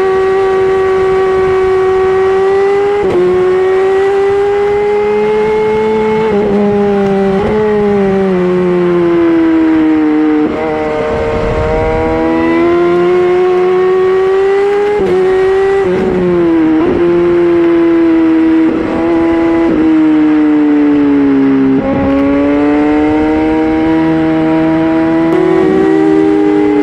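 Sport bike's high-revving engine running flat out at around 300 km/h, its note slowly rising and falling with several abrupt dips and jumps in pitch, over steady wind rush.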